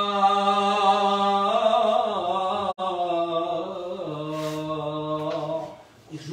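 A single male voice chanting a slow liturgical melody in long held notes, stepping lower in pitch as it goes, with a momentary break just under three seconds in. The phrase ends about a second before the close.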